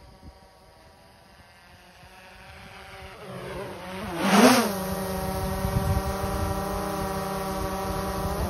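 DJI Mavic 2 Zoom quadcopter's propellers humming as it flies in toward the camera, growing louder. About halfway through there is a brief loud surge with a wobble in pitch, then the drone hovers close by with a steady multi-tone buzz.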